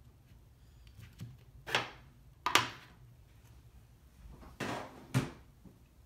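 A screwdriver bit set is packed away: four short clacks and knocks as the bit tray and its case are handled and closed. The loudest comes about two and a half seconds in.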